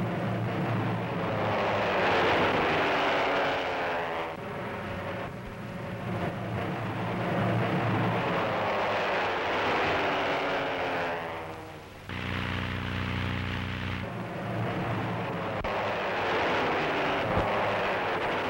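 Propeller biplane's piston engine droning overhead in repeated passes, each swelling and then dropping in pitch as the plane goes by. About twelve seconds in it holds a steady drone for a couple of seconds before another pass.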